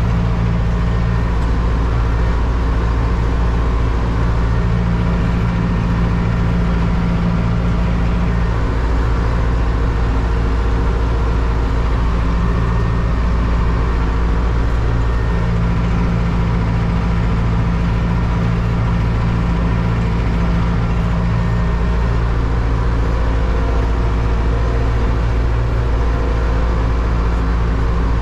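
Zetor 7341 Super Turbo tractor's turbocharged four-cylinder diesel running steadily and loudly under load, pulling a two-furrow plough.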